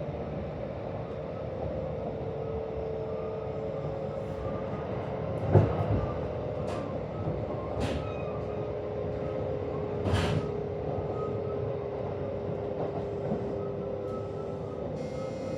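Kintetsu 1026 series electric train's VVVF inverter whining with a steady tone as the train slows, mixed with a hoarse, growling noise that is not normally heard and that the recordist takes for a sign of a degrading inverter. Several short sharp noises come from the running gear about five, seven, eight and ten seconds in, over the running rumble.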